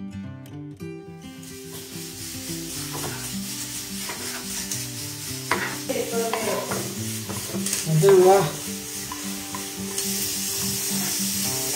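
Background music, its notes changing a few times a second, over a steady hiss that sets in about a second in and grows stronger near the end.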